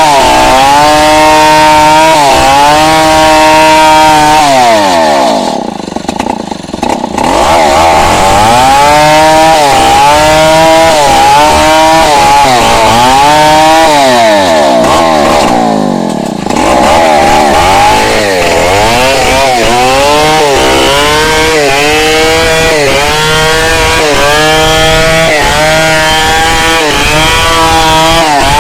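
Two-stroke chainsaw cutting into wood at full throttle, its engine pitch wavering under load. Twice, about five and fifteen seconds in, the revs fall away and then climb back up.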